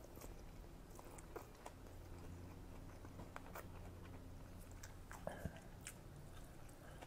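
Faint chewing of a bite of smoked mackerel rice ball, with a couple of small clicks about five seconds in as the food is dipped at the plate.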